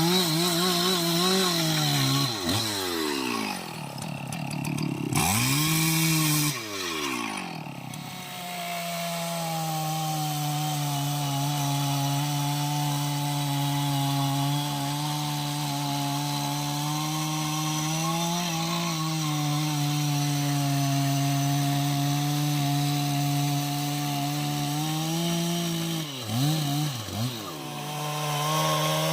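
Two-stroke chainsaw running at high revs, cutting through jackfruit wood. Its pitch sags and recovers a few times in the first seconds and again near the end, and holds steady through the long middle stretch.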